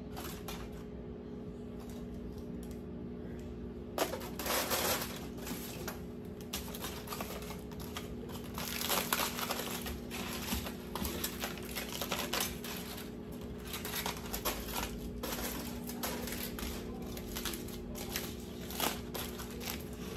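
Small kitchen handling sounds: an irregular run of clicks, taps and rustles, starting about four seconds in, over a steady low hum.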